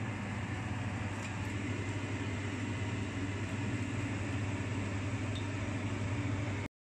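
A steady low mechanical hum with a hiss over it, cutting off suddenly near the end.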